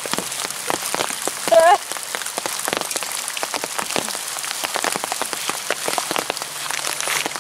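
Steady rain falling on the pond and on the umbrella overhead, many close, crisp drop taps over a hiss. A brief wavering tone sounds once about a second and a half in.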